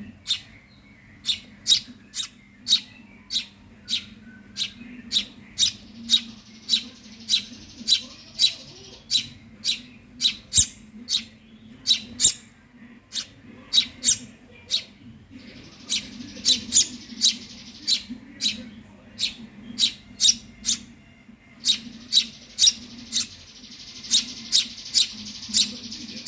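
Young Eurasian tree sparrows begging for food: a long run of sharp chirps, about two a second, with stretches of a higher, fizzing begging chatter behind them, over a faint steady low hum.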